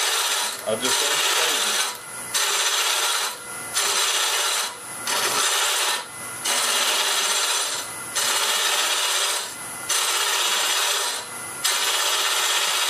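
Jamieson boring bar's cutter hollowing a spinning mesquite vessel on a wood lathe: a steady hissing rasp of wood being cut. It comes in passes about a second long with short breaks between, about one every second and a half, as the cutter is worked in and pulled back.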